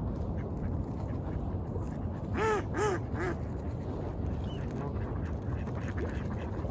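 A duck quacking three times in quick succession about two and a half seconds in, over a steady low rushing background.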